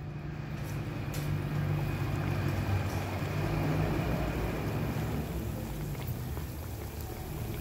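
Bhatura dough frying in hot oil in an aluminium kadhai: the oil sizzles hard as the dough goes in, rising over the first second and then holding steady, with a low steady rumble underneath.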